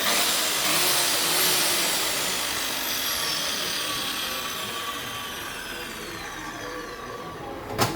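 Electric saw running, its whine falling slowly in pitch and fading as it goes, with a sharp click near the end.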